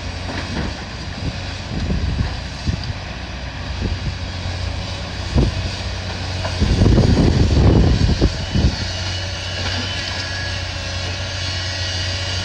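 Engine of heavy demolition machinery running steadily, with wind gusts buffeting the microphone. The wind noise is loudest for about two seconds past the middle. A single sharp knock sounds about five seconds in.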